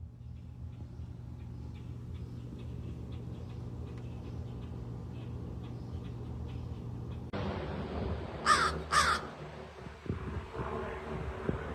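A crow cawing twice in quick succession over steady low background rumble.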